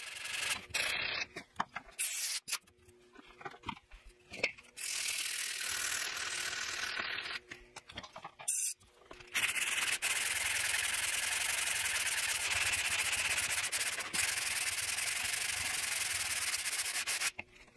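Sandpaper rubbed by hand over a maple wood paddle: a few short sanding strokes at first, then long stretches of steady back-and-forth sanding hiss.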